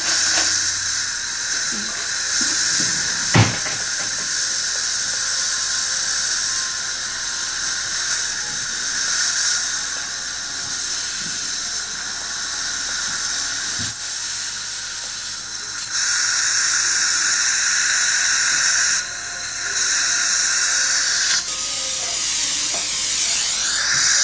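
Low-speed dental implant handpiece drilling in the jaw, with a surgical suction hissing steadily; the hiss grows louder for a few seconds about two-thirds of the way through. One sharp knock a few seconds in.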